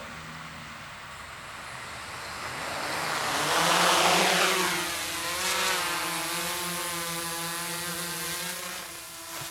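Quadcopter's four DYS D4215 650kv brushless motors driving 10-inch propellers spin up and lift it off. The sound is loudest, with a rushing prop-wash noise, about four seconds in. It then settles into a steady multi-tone hum as the quad climbs and hovers.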